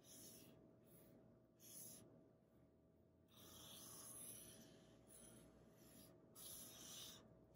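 Faint scratching of a fine-tip felt marker drawing lines on paper: a few short strokes, with one longer stroke in the middle.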